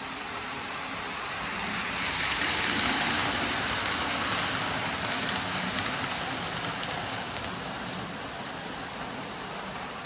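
Model passenger train running past on ballasted track: a steady rolling noise of wheels on rail and motor that swells, is loudest about three seconds in, and fades as the train goes by.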